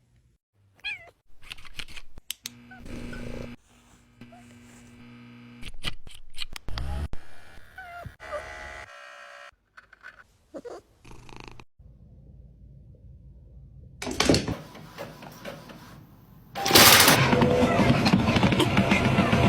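Cats meowing in short, separate bursts, with abrupt cuts between them. Near the end, a loud, steady rushing noise takes over.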